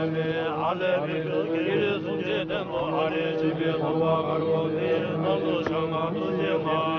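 Buddhist lamas chanting prayers together: a steady, low drone of several men's voices with held tones. Two brief sharp clicks come through partway.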